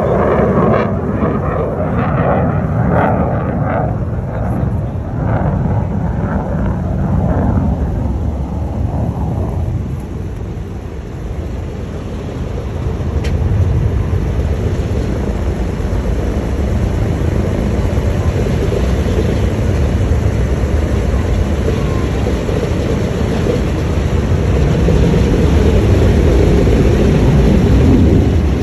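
Four Wright R-1820 Cyclone radial engines of a B-17 Flying Fortress running as the bomber taxis, a deep steady drone that pulses a little at first and grows louder over the last few seconds.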